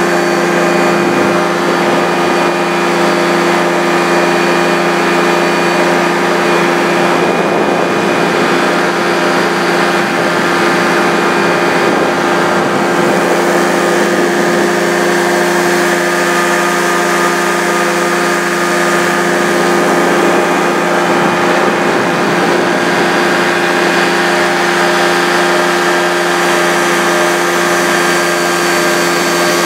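Powered parachute's engine and propeller running steadily in flight, a constant loud drone whose pitch holds level throughout.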